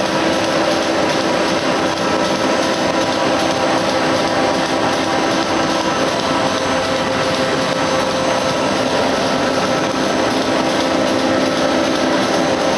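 Stack-type flexographic printing machine running, rewinding a roll of woven polypropylene fabric through its rollers: a steady mechanical whir of motors and rollers with a constant hum, even in level throughout.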